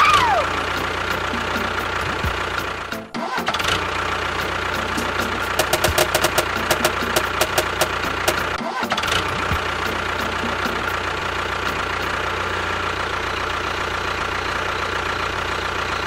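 A small motor running steadily with a constant whine. It cuts out briefly about three seconds in and again near nine seconds. Quick clicks rattle over it for a couple of seconds in the middle.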